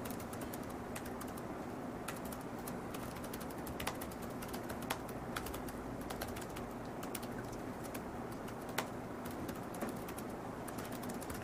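Typing on a computer keyboard: irregular keystroke clicks, a couple of them louder, over a steady low hum.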